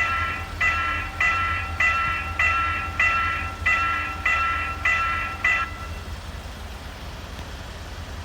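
Railroad level-crossing warning bell ringing in evenly spaced strikes, about one every 0.6 s, over a steady low rumble. The bell stops about five and a half seconds in, as the crossing signal switches off.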